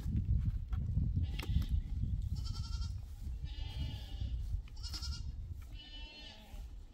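Goats bleating, four short high wavering bleats about two to six seconds in, over a steady low rumble.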